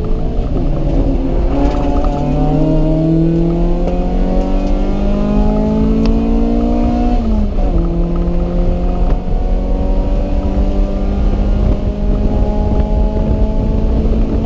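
Car engine pulling hard under acceleration, its pitch climbing steadily for about seven seconds. It drops sharply at an upshift, then climbs again more slowly, over a constant heavy low rumble.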